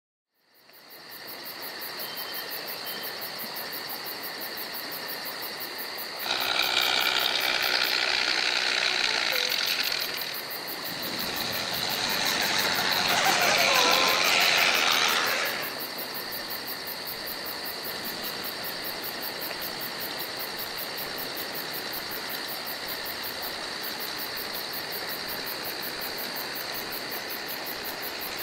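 Simulated engine sound from the scale RC Jeep Wrangler JK Rubicon's onboard sound module, played through a small speaker. It fades in, idles steadily with a fine even pulse and a steady high whine, and grows louder twice, for about four seconds each, as the truck is driven.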